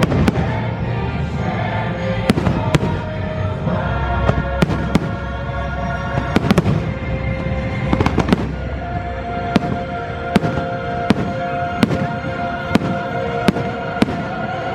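Fireworks shells bursting in a string of sharp bangs, about one every half second to second, over a show's music soundtrack with long held notes.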